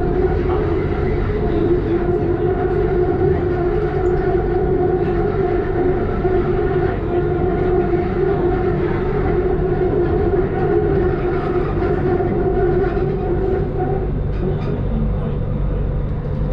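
BTS Skytrain electric train running between stations, heard from inside the car: a steady rumble with a steady motor whine. The whine stops about two seconds before the end while the rumble carries on.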